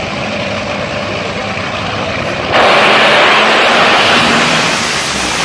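Top fuel dragster's supercharged, nitromethane-burning V8 running at full throttle, very loud and noisy. About two and a half seconds in it jumps abruptly louder and brighter.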